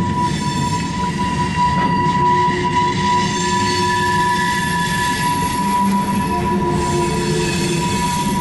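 Railcars of a CSX maintenance-of-way freight train rolling past with a steady low rumble, their wheels squealing in steady high tones as they come off the curved leg of a wye.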